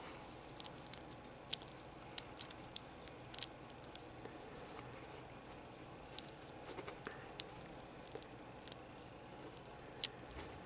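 Hard plastic model-kit parts being handled and pushed together, giving small scattered sharp clicks and taps.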